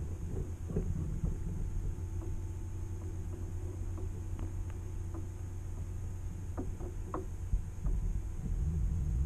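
Muffled underwater sound picked up by a GoPro held under the surface of shallow lake water: a steady low hum and rumble with scattered faint ticks and clicks, a small cluster of them about two thirds of the way in.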